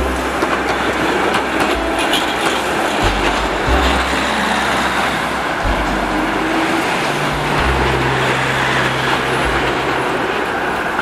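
GT4 trams passing on street track: a steady noise of steel wheels running on the rails, with occasional clicks, mixed with road traffic. Low steady notes change pitch in steps underneath.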